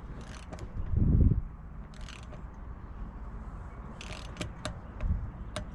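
Handling of hand tools and the wheel: a few scattered light clicks and taps, with a dull low thump about a second in.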